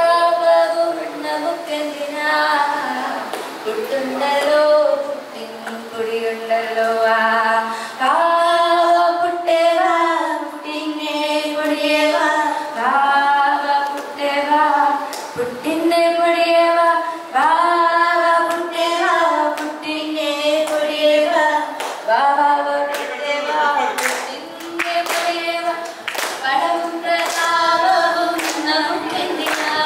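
Young women singing an unaccompanied Malayalam Christian action song into a microphone. Rhythmic hand claps in time with the song come in about two-thirds of the way through.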